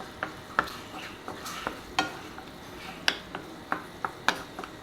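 Spatula stirring beef in a frying pan: irregular knocks and scrapes against the pan, about three a second, over a steady low sizzle.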